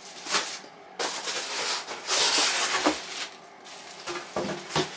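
Packaging being handled in a cardboard box: plastic bag and bubble wrap rustling, loudest in the middle, with a few light knocks near the end.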